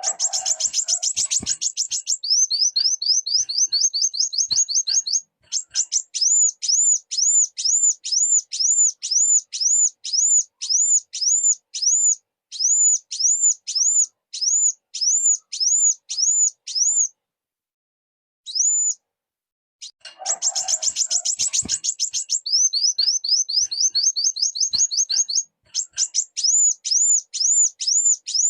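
Kolibri wulung sunbird singing high and thin. A fast chattering burst is followed by a quick run of short rising notes, then a long string of arched whistled notes at about two a second. The same sequence starts over about twenty seconds in.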